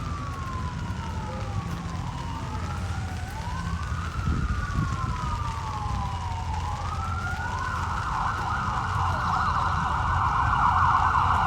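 Emergency-vehicle siren wailing: two slow rising-and-falling tones out of step with each other, switching to a rapid yelp about seven and a half seconds in and getting louder. A low rumble runs underneath.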